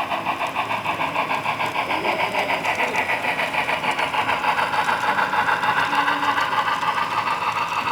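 Scale model train running along the track: a steady rhythmic clatter of about five beats a second over a motor whine that dips slightly in pitch and rises again.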